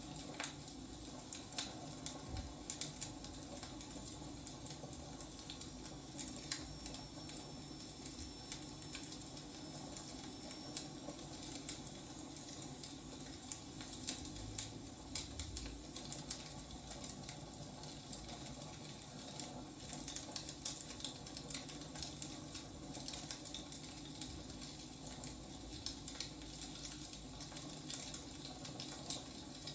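Wood fire burning: irregular small crackles and pops over a steady low hiss.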